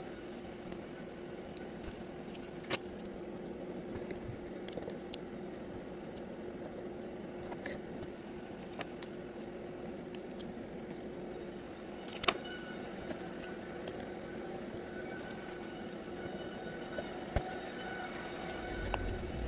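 Masking tape being handled, torn and pressed onto a plastic rotary-dial telephone: small crackles, scrapes and scattered sharp clicks, one louder click about twelve seconds in, over a steady low hum.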